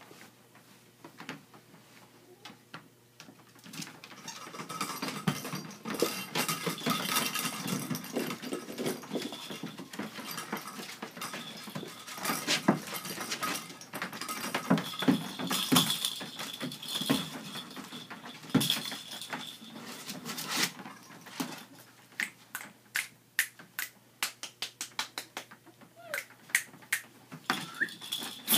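Scottish Terrier puppies playing and scuffling on blankets in a plastic kiddie pool: rustling, scrabbling and knocks, with small puppy noises and a few brief high squeaks. A quick run of sharp clicks comes near the end.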